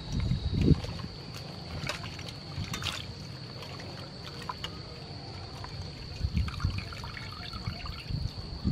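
River prawns being washed by hand in a steel bowl of water: irregular splashing and sloshing, busiest at the start and again near the end, with water trickling as the prawns are lifted out.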